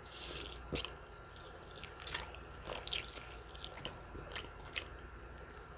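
Close-miked chewing and biting of food: irregular small crunches and wet mouth clicks.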